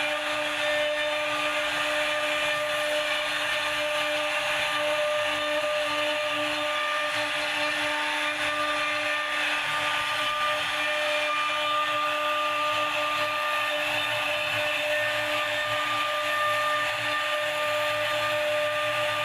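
CNC router spindle running steadily at a high whine while carving wood, the cutting noise over several steady tones.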